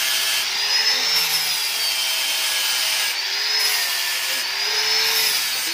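Angle grinder with a cutting disc cutting into the steel muffler of a Yamaha Fino 125 scooter: a steady grinding whine that wavers in pitch a few times as the disc works the metal.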